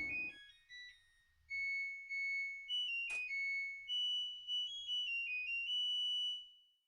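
Washing machine's electronic end-of-cycle melody, a tune of high beeping notes, playing as the machine's running noise stops at the very start. A sharp click sounds about three seconds in.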